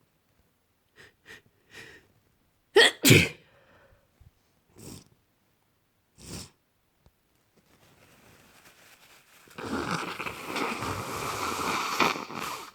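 A person with a cold sneezing: a few quick catching breaths, then one loud sneeze about three seconds in, followed by short sniffs. Near the end comes about three seconds of steady rough noise.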